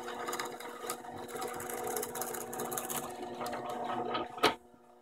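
Drill press running with a steady motor hum while its 3/8-inch bit cuts a rasping hole into a 2x4; the press won't go down far enough, so the bit stops short of boring all the way through. The cutting ends with a sharp click about four and a half seconds in, after which it goes much quieter.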